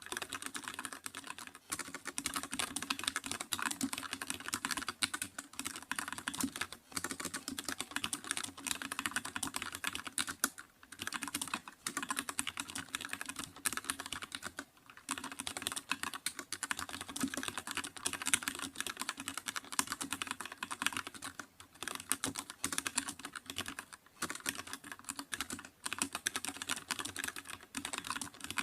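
Continuous fast typing on a computer keyboard, dense runs of key clicks with brief pauses now and then.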